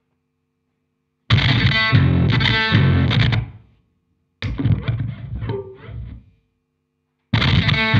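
Electric guitar through a distortion pedal and amp, played as improvised noise music. It comes in three harsh bursts of distorted noise that start abruptly and break off into dead silence. The first has short pitched tones inside it, and the second dies away.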